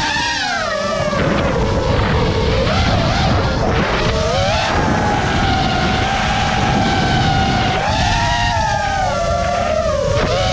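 FPV quadcopter's electric motors whining in flight, the pitch sliding up and down with the throttle: it drops just after the start, holds fairly level, then dips and climbs again near the end. A steady low rumble of noise runs underneath.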